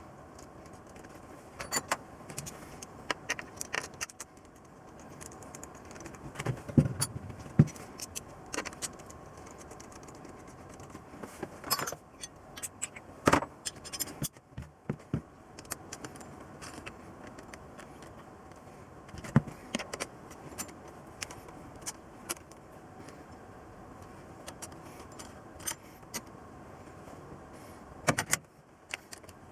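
Metal tools and small metal parts clinking, tapping and scraping in irregular bursts during hand work on an engine, over a faint steady background hum.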